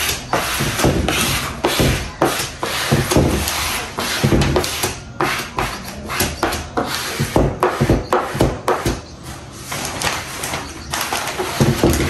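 Self-adhesive vinyl film being applied to a countertop: the plastic sheet rustling and being rubbed and scraped down in irregular swishes, with occasional light knocks.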